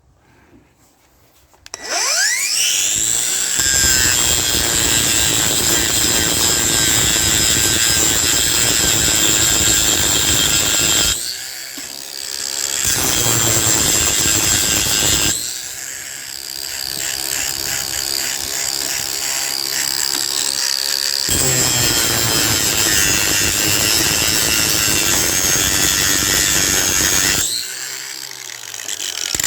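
Electric grinder spinning up with a rising whine, then grinding into brass scrap. The grinding eases and comes back a few times as the disc comes on and off the metal, then winds down near the end.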